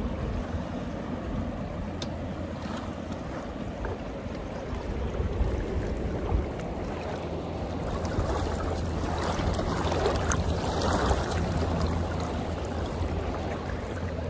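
Fast river water rushing and lapping around a drifting raft, with wind buffeting the microphone as a low rumble. The water noise grows louder for a few seconds past the middle.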